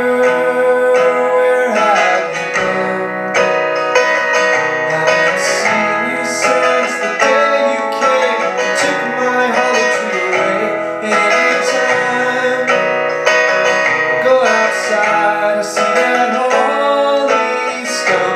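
Acoustic guitar strummed in a steady rhythm, with a man singing over it in places.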